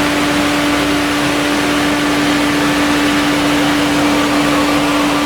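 Warm four-cylinder petrol car engine idling steadily, with an even hum.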